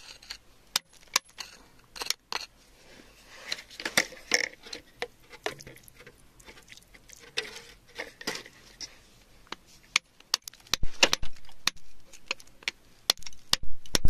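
A metal hand tool tapping, scraping and prying at wet, gravelly rock: sharp clicks and knocks throughout with short spells of scraping, and a run of heavier blows in the last few seconds.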